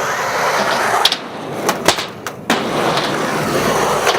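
Skateboard wheels rolling on a ramp, with several sharp clacks of the board striking about a second in and again around two seconds in.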